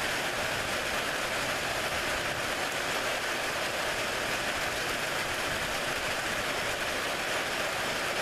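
Heavy rain pouring steadily during a thunderstorm, an even hiss with no thunder claps.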